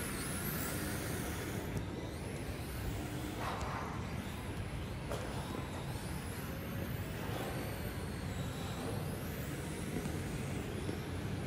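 RC drift cars, including a 4WD Blaze DFR, whining high as their electric motors spin up and down through the drifts, the pitch rising and falling again and again over a steady hiss.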